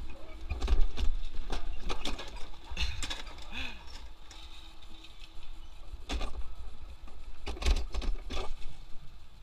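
Alpine coaster sled rolling slowly on its steel track, its wheels and the track mechanism giving irregular clicks and clunks over a low rumble.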